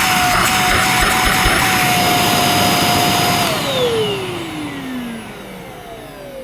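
A 600-watt EGL handheld mains-powered vacuum cleaner running at full speed with a steady, fairly noisy whine. About three and a half seconds in it is switched off, and the whine falls in pitch as the motor spins down.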